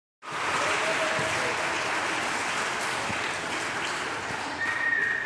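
A crowd of children cheering and clapping, a steady din, with one short whistle blast near the end, the loudest moment.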